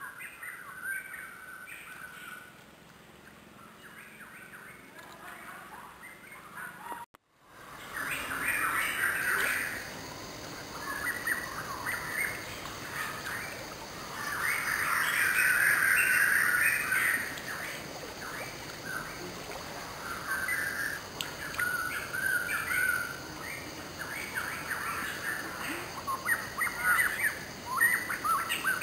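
Birds chirping and calling, many short calls overlapping, with a brief dropout about seven seconds in.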